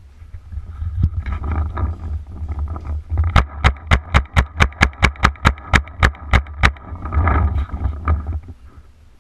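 Paintball marker firing a rapid string of about eighteen sharp shots, roughly five a second, from about three seconds in until nearly seven seconds, over a steady low rumble and rustling.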